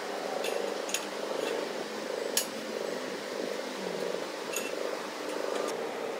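Hand tools knocking on the parts of a stripped Suzuki 800cc engine: a handful of sharp metallic clinks, the loudest about two and a half seconds in, over a steady pulsing hum.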